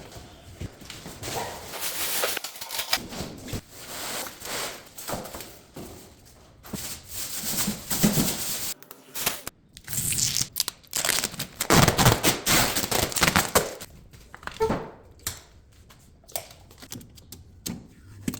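Refrigerator packaging being torn open and handled: irregular tearing and crinkling rasps with knocks and thuds, loudest about eight and twelve seconds in.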